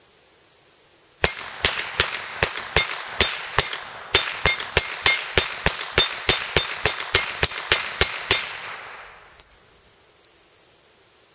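Rapid semi-automatic fire from an ISSC MK22 .22 LR carbine: about 22 shots at roughly three a second, each with the ring of the steel gong target being hit. The rifle is cycling reliably through a full 22-round magazine. About a second after the last shot there is one sharp metallic crack with a high ring, and the gong's ringing dies away.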